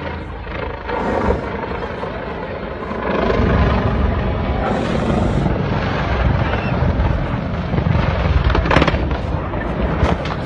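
Engine noise of a low-flying aircraft descending steeply toward a hillside, picked up by a phone: a steady drone that swells into a heavy low rumble about three seconds in, with a sharp crack near the end.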